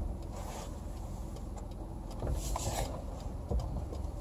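Vehicle engine running with a low, steady rumble, heard from inside the cab, with a few faint clicks.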